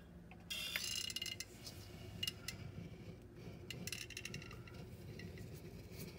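Faint clicks and small scraping sounds of a caulking gun being worked along the joint between wall and granite countertop.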